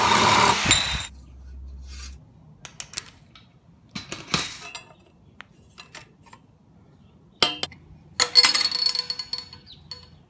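Tools and metal hardware clinking, knocking and scraping during fence and gate building. There is a loud rasping burst in the first second and another about 8 seconds in that leaves a short metallic ring, with scattered single clicks and taps between.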